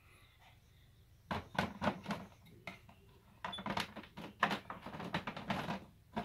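Plastic front cover panel of a Balmuda AirEngine air purifier being fitted and pressed into place: a series of plastic knocks and clicks. There is a short cluster a little over a second in, then a denser run from about three and a half seconds until shortly before the end.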